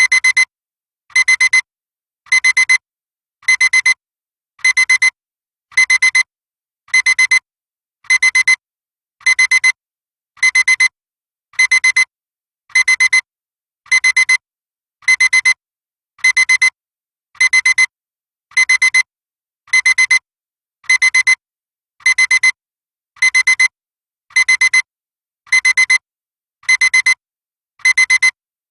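Classic electronic alarm clock beeping: a shrill, high-pitched beep in clusters of four quick beeps, repeating about once a second.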